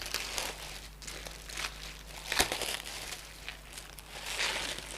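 Plastic-and-paper parcel packaging crinkling and rustling as it is torn open by hand, in repeated bursts, with one sharp snap about halfway through.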